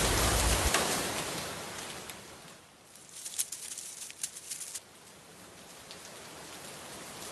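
Rain falling: a steady hiss that is loud at first and fades away over the first three seconds. It leaves faint rain with a scatter of light sharp ticks.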